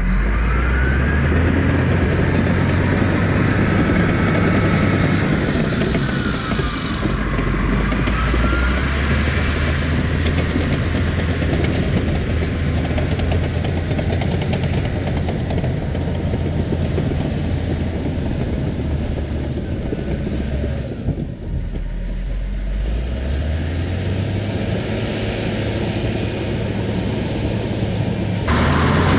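Engine of an earthmoving machine running steadily while pushing topsoil, its pitch dropping briefly about two-thirds of the way through and then rising again.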